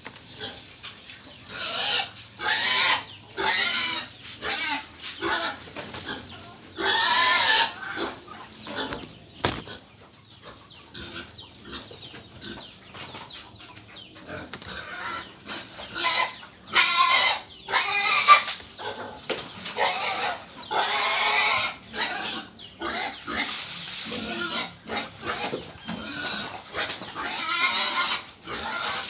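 Pigs calling over and over in short, high-pitched cries at feeding time.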